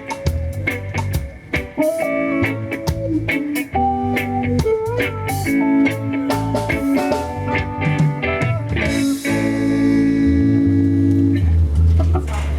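Live band playing at a sound check: an electric guitar picks out a melody over bass guitar and drum kit, with a cymbal crash about nine seconds in and long low bass notes near the end.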